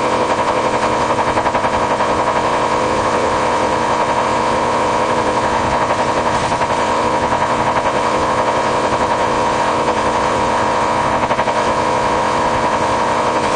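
A long, unbroken stream of rapid Morse code beeps on a single high tone with a noisy, buzzy edge. The message spells out "I hate you all".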